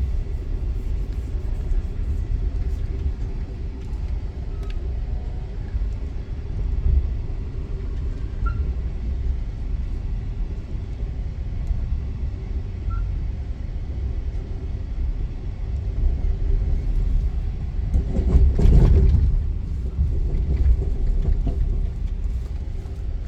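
Steady low rumble of a moving Amtrak Auto Train heard from inside the passenger car, with a faint steady hum over it. The rumble swells louder for a couple of seconds about three-quarters of the way through.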